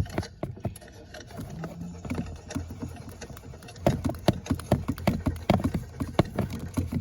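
Rapid, irregular clacking and knocking from a car that won't start while someone tries to start it, over a low steady hum; the strokes grow denser and louder about four seconds in.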